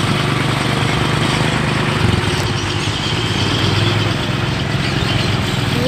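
Bedford truck's diesel engine running steadily as the truck drives slowly over rough ground, its note shifting slightly about two seconds in.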